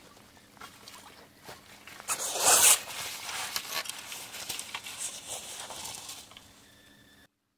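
A fish thrashing and splashing in a landing net as the net is lifted out of the water, with water running off the mesh; the biggest splash comes about two and a half seconds in, then scattered splashes and drips. The sound cuts off suddenly near the end.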